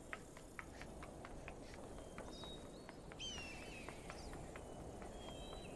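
Quick, light footsteps climbing metal stairs, about four steps a second for the first two seconds, over a steady outdoor hiss. A few short bird chirps come in the middle and near the end.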